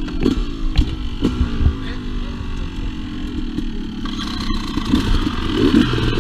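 Two-stroke dirt bike engine running under way. Its pitch drops as it comes off the throttle, then rises again as it accelerates, with a few knocks near the start.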